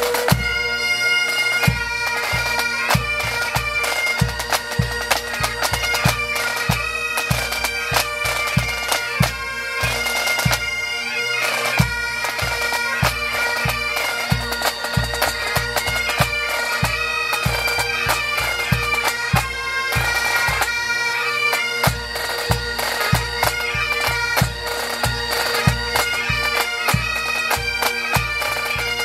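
Scottish pipe band playing: several Great Highland bagpipes sounding a steady drone under the chanter melody, with drums keeping a regular beat underneath.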